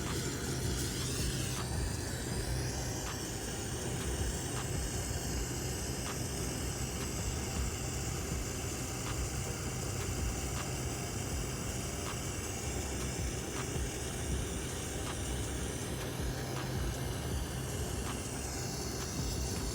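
Steady hiss of a torch flame heating a copper refrigerant line joint for soldering, over a low steady hum.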